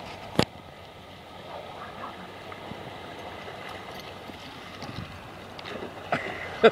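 Small waves washing over a sandy shore in shallow water, with a dog splashing through it. A sharp click about half a second in and a short loud sound near the end.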